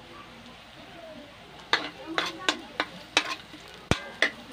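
Metal spatula scraping and knocking against a metal wok, about three strokes a second from about two seconds in, as minced garlic sautés in a little oil with a faint sizzle.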